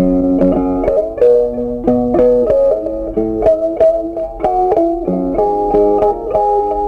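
Background music: plucked guitar playing a steady run of notes.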